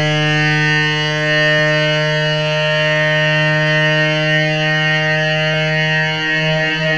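A loud, steady droning note held without a break, wavering slightly near the end.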